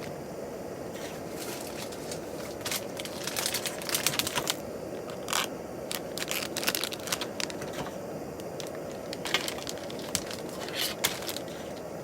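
Irregular crinkling and crackling, like material being handled or crushed, over a steady background hiss.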